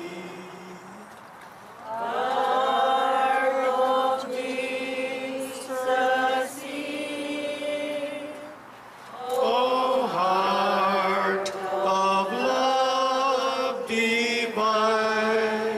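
Liturgical chant sung by voices, long held notes in phrases, with brief pauses about a second and nine seconds in.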